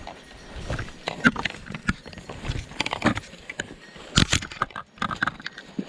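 Footsteps crunching through dry fallen leaves and brush, with twigs snapping and branches scraping past, in an irregular run of short crackles.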